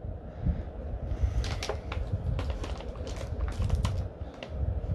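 Small hard-plastic toy accessories being handled and set down on a table: a run of irregular light clicks and taps.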